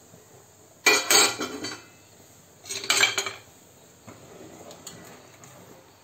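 Metal ladle clattering against a stainless steel pot in two short bursts about two seconds apart, then fainter scraping and clinks as it stirs the liquid curry.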